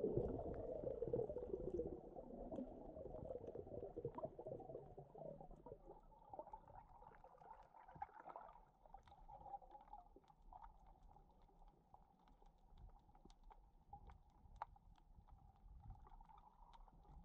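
Muffled underwater sound picked up by a camera below the surface: a faint low rumble that fades over the first few seconds, with scattered small clicks and ticks.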